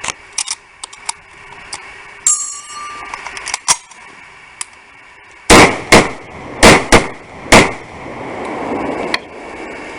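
Norinco SKS semi-automatic carbine firing five 7.62x39mm rounds in quick succession, five sharp shots over about two seconds in the second half. A few light metallic clicks and a ringing clang come before the shots.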